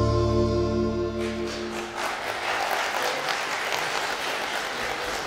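The held final notes of a song stop about a second in, and an audience applauds.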